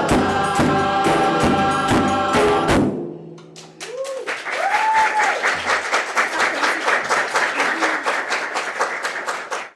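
A group sings with instruments and percussion until the song ends about three seconds in. Audience applause with a couple of brief cheering calls follows and cuts off abruptly near the end.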